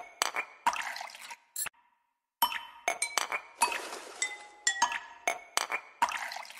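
A slotted metal spoon clinking and scraping against the wall and base of an aluminium pressure cooker while stirring frying onions in oil. The strikes come irregularly, each ringing briefly, with a short pause about two seconds in.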